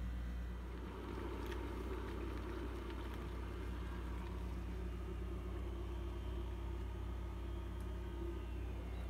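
Steady low hum with a faint rumble under it, unchanging throughout, with a couple of faint light ticks.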